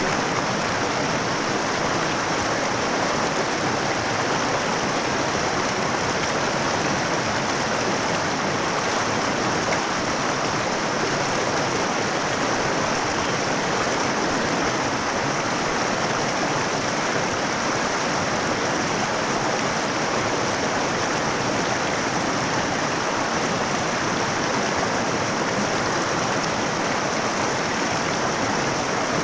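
Mountain river flowing over rocks: a steady, unbroken rush of running water.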